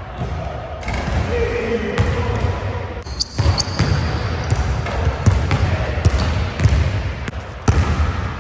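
Basketball bouncing on a hardwood gym floor, with a run of sharp bounces and footfalls from about three seconds in.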